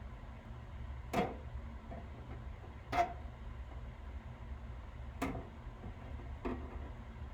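Four short, sharp clicks, one to two seconds apart, over a steady low hum.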